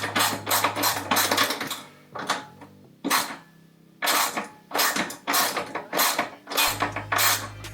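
Ratchet wrench clicking in quick runs of strokes with short pauses, tightening down the mounting bolts of a motorcycle's air-ride compressor and air tank.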